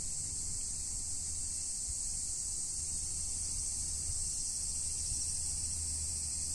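Steady, high-pitched chorus of summer insects, one unbroken drone, over a low steady rumble.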